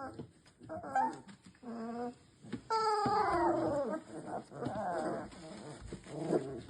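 Labrador puppies about three weeks old squealing and whining as they play fight, a string of short high cries with one long falling squeal a little before the middle.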